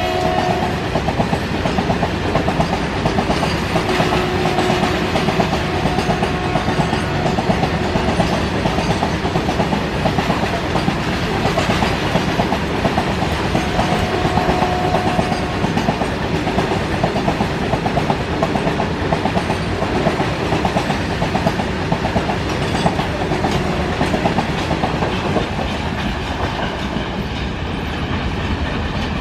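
A long rake of BCNHL covered freight wagons rolling past at speed, the wheels rattling and clicking steadily over the rail joints. A few brief ringing squeals cut through the rattle, and the noise eases slightly near the end as the brake van goes by.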